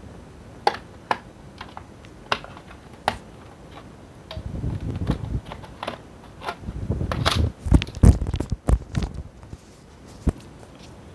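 Plastic palmrest cover of a Dell laptop being pried off by hand: scattered sharp plastic clicks as its clips let go, with two stretches of plastic scraping and rubbing, the loudest clicks just past the middle.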